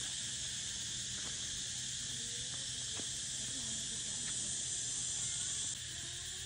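Steady, dense chorus of insects droning high in the trees, easing slightly near the end, with faint distant voices under it.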